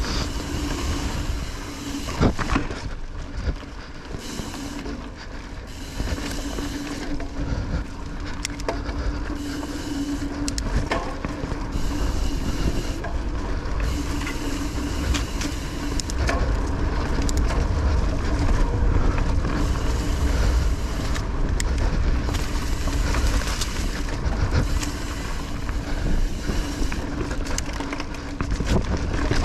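Kona Honzo mountain bike ridden fast along forest singletrack: tyres rolling over dirt and roots, with frequent sharp knocks and rattles as it goes over bumps, and wind rushing on the bike-mounted microphone.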